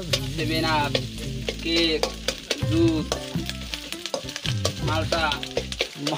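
Noodles being stir-fried in a metal pot: a utensil scraping and clicking against the pot over steady sizzling. A song with singing plays in the background.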